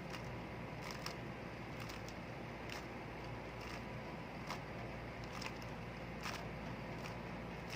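Faint clicks of a Rubik's cube's layers being turned, roughly one a second, over a steady low background hum.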